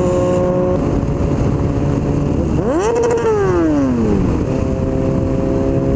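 Honda CBR600 F4i inline-four running through a Coffman aftermarket exhaust. It holds a steady note, revs up once about two and a half seconds in, falls back over about a second, then settles to a steady note again.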